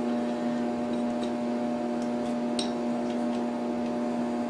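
A steady electrical hum, with a few faint clicks as sticky bread dough is pulled off a stand mixer's dough hook in a stainless steel bowl.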